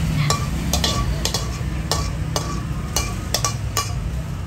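Metal spatula scraping and knocking against a steel wok while seafood and basil are stir-fried, at about two or three irregular strokes a second, each knock ringing briefly. The food sizzles throughout over a low steady rumble.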